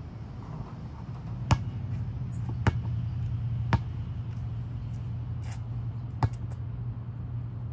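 Basketball slapping against hard surfaces on an outdoor court: a released shot coming down off the hoop and the ball bouncing on the concrete, several sharp single hits about a second apart. A steady low hum runs underneath.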